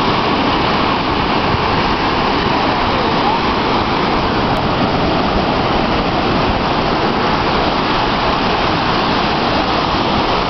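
Small waves breaking and washing over a shallow sandy beach: a steady rushing noise that never lets up.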